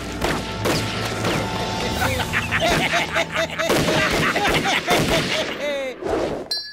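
Rapid rifle shots fired in volleys, mixed with short, high, panicked yelps from about two seconds in. Near the end the sound sweeps away into a whoosh.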